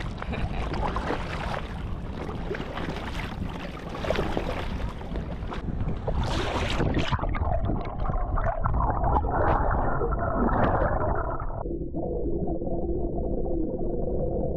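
Water sloshing and splashing against an inflatable kayak as it is paddled. About seven seconds in, the action camera's microphone goes under the surface and the sound turns muffled, ending in a dull underwater gurgle with a faint steady drone.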